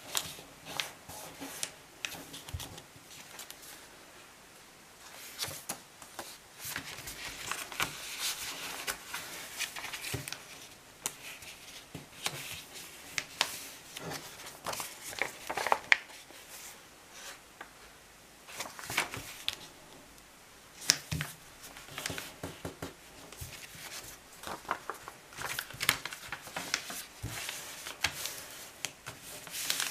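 A sheet of A4 paper being folded by hand into a paper airplane: irregular rustling and crinkling with sharp clicks as fingers press and smooth the creases flat, in spells with brief pauses.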